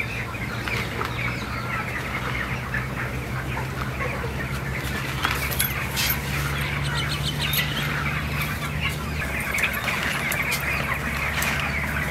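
Hens clucking and birds chirping steadily, over the soft rustle and small clicks of cut vakkai (karonda) pieces being mixed by hand with spice powder in a clay pot. A low steady hum runs underneath and fades about three-quarters of the way through.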